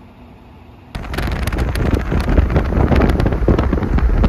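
Wind buffeting the microphone with rumble and crackle from a moving vehicle, starting suddenly about a second in after a faint low hum.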